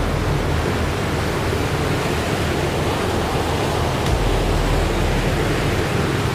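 Steady, fairly loud rushing noise like surf or wind, even and unbroken.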